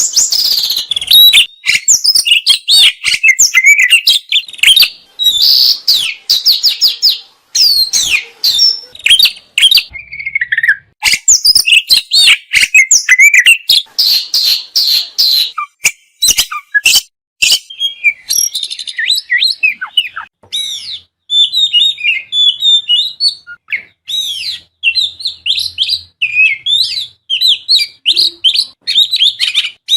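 Oriental magpie-robin (kacer) singing a loud, fast, varied song of whistles, trills and sharp chattering notes, with rapid-fire 'tembakan' bursts and mimicked 'isian' phrases.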